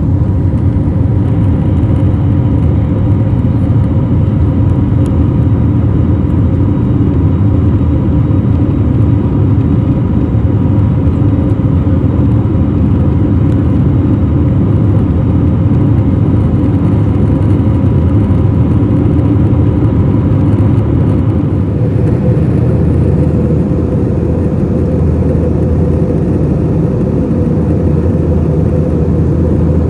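Steady drone of a jet airliner cabin in flight: engine and airflow noise with a faint steady hum, shifting slightly in tone about twenty seconds in.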